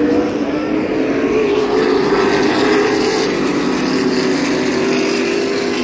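A pack of NASCAR Cup Series stock cars' V8 engines running past at speed, blending into one loud, steady drone whose pitches sag slowly as they go by.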